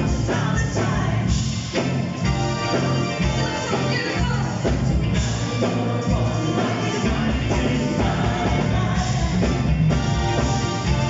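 Live band playing: a man sings over electric guitars and bass.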